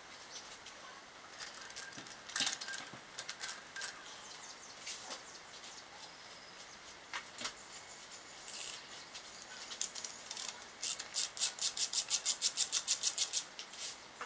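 Scattered light metallic clicks and clinks of hand tools and parts being handled on a bare LS V8 engine block. Near the end comes a quick, even run of about eight ticks a second lasting a couple of seconds.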